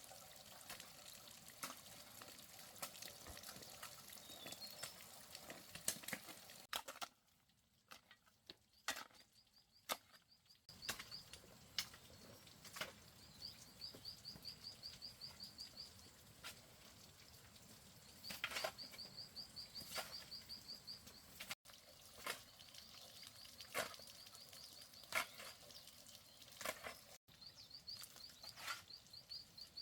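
Faint stream-side ambience: a soft watery hiss with scattered sharp clicks and knocks, and a bird's rapid high trill that comes four times, each burst lasting a second or two.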